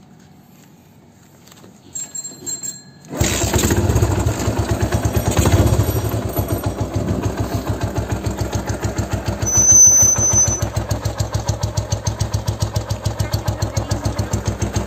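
Binter Merzy KZ200 motorcycle's single-cylinder four-stroke engine being started: two short cranks about two seconds in, then it catches and settles into a steady idle with an even beat. It is revved briefly a couple of times.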